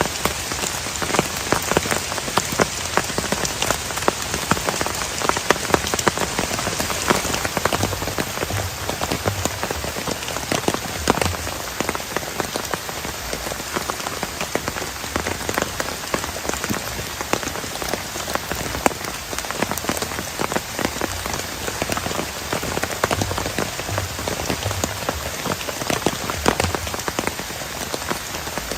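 Heavy rain falling steadily, with a dense patter of close drops hitting a surface.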